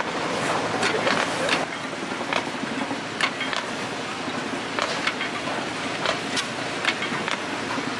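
12 hp Farrar & Trefts steam/air engine running, its rods and valve gear working, with sharp knocks or clicks at uneven intervals of about half a second over a steady mechanical noise.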